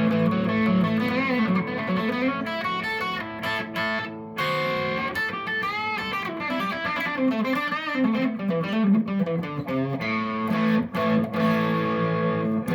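Electric guitar played through a Fender Bassbreaker 30R tube combo amp on its dirty (overdrive) channel: ringing chords and single-note riffs. There is a short pause about four seconds in.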